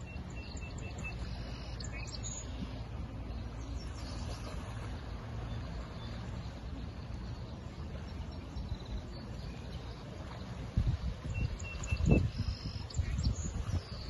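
Steady low rush of lake water and wind on the microphone, with small birds chirping a few short notes near the start and again near the end. In the last few seconds, irregular low thumps break in on the microphone.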